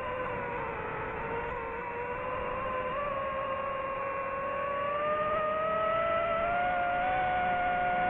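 DJI FPV drone's motors whining as several steady tones together. Their pitch climbs gradually from a few seconds in and holds higher near the end, growing louder as it rises.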